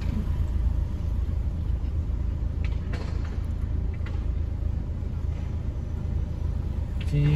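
Car engine idling, heard from inside the cabin as a steady low rumble while stopped at a red light, with a couple of faint clicks near the middle.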